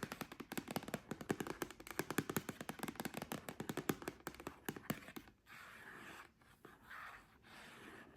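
Long fingernails tapping rapidly on a hard surface, then scratching in a few slower strokes from about five seconds in.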